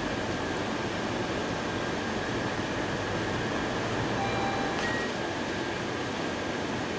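Steady mechanical hum and hiss of room ventilation, with a thin, faint high whine running through it. A faint click and a few short, faint tones come just under five seconds in.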